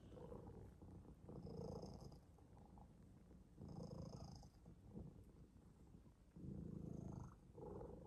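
A cat purring softly, the purr swelling and fading in rhythm with its breathing every couple of seconds.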